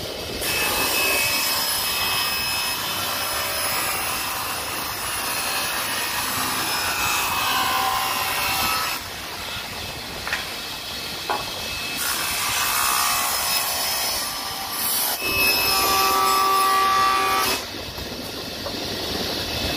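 Table saw ripping a pine board lengthwise: loud cutting noise with a faint blade whine, easing twice to the quieter sound of the blade running free between cuts.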